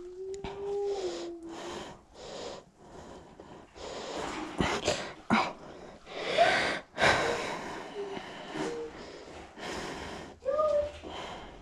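A person breathing heavily close to the microphone, in irregular breathy bursts, with a short held vocal tone at the start and brief pitched vocal sounds near the end.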